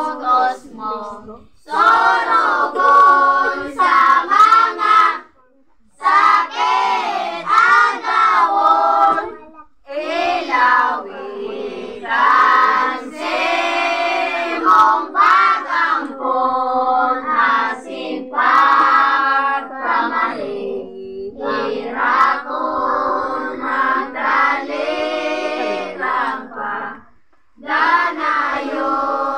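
A group of children and women singing a devotional hymn together, unaccompanied, in long phrases with brief pauses between verses.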